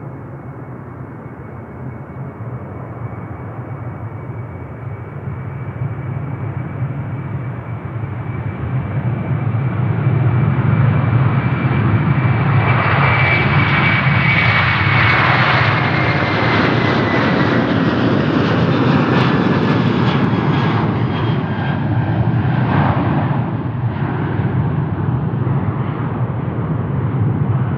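Airbus A330-300 twin-engine jet airliner taking off at full thrust. The engine sound swells over the first ten seconds and stays loud, with a high whine that slides down in pitch as the aircraft passes.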